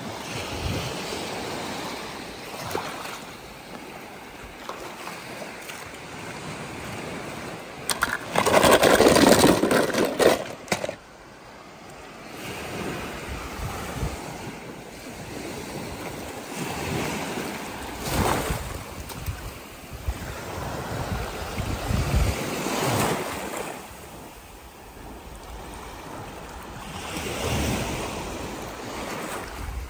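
Water sloshing and splashing in uneven swells, loudest for a few seconds about eight seconds in.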